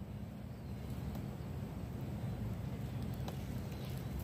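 Low, steady background rumble with a single faint click about three seconds in.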